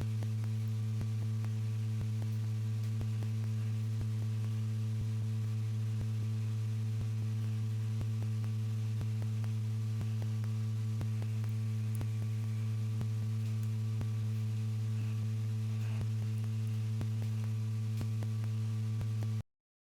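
Steady electrical hum: a low drone with a ladder of overtones and faint scattered ticks. It cuts off abruptly near the end.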